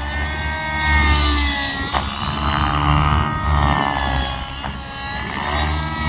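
Nitro RC helicopter's OS 55 HZ glow engine with tuned pipe running in flight, its pitch rising and falling as the throttle and rotor load change, with a low rumble that comes and goes.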